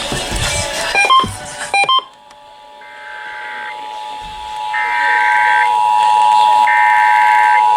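Emergency Alert System test signals: the EAS two-tone attention signal fades in about two seconds in, then holds steady and loud. Over it come three separate one-second bursts of SAME header data tones. Before that, a few clicks and short beeps at different pitches.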